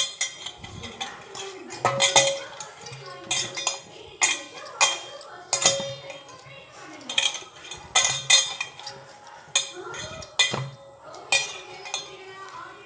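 Metal utensils clinking and knocking against a steel bowl, a dozen or so separate strikes, several leaving a brief ringing tone.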